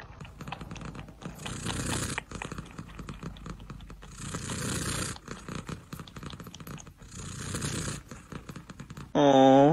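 Domestic cat purring close by, a fast rough rattle that swells and fades about every three seconds with its breathing. Near the end a loud pitched call cuts in.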